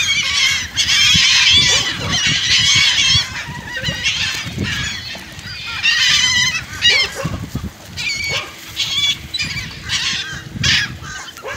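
A flock of water birds calling noisily as they crowd in to be fed, many short, wavering, high-pitched calls overlapping, thinning out a little toward the end.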